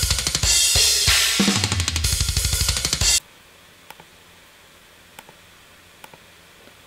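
A programmed drum-kit pattern playing back from a software drum sampler: dense kick and snare hits under crashing cymbals, a short phrase repeating as a loop. It stops abruptly about three seconds in, followed by a few faint clicks.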